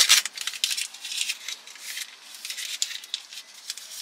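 Paper sleeve of disposable wooden chopsticks being torn open and crinkled as the chopsticks are slid out: a quick, irregular run of sharp crackles and rustles, loudest at the start.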